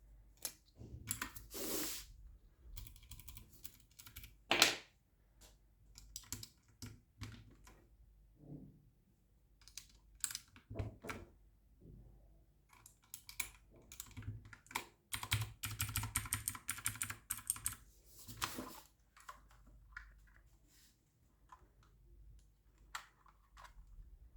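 Typing on a Havit Gamenote mechanical gaming keyboard: irregular clicking keystrokes with a loud single knock about four seconds in and a fast run of keystrokes about two thirds of the way through.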